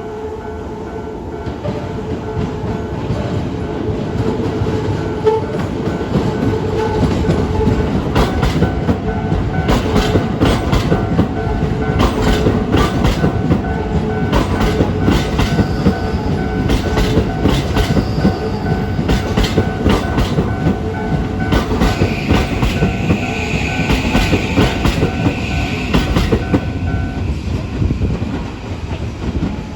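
A Toei 5500-series electric train passing over a level crossing, its wheels clicking rapidly over the rail joints above a heavy rumble. The crossing's warning bell rings steadily throughout and stops a few seconds before the end.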